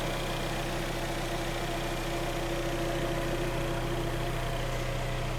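Kia Sportage 3's freshly rebuilt engine idling steadily, with a hum from the cold automatic gearbox that comes and goes and fades near the end. The hum is put down to the gearbox being cold and is expected to stop once it warms up.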